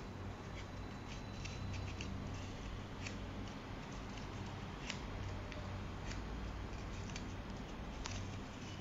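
Paper rustling and crackling as it is folded and creased by hand, with a few sharper crinkles spread through, over a low steady hum.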